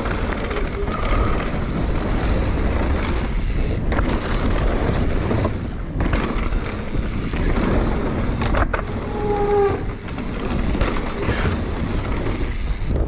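Mountain bike descending a dirt and gravel trail at speed: steady wind rush on the camera's microphone over the tyres running on loose dirt, with the bike rattling and a few sharp knocks from bumps.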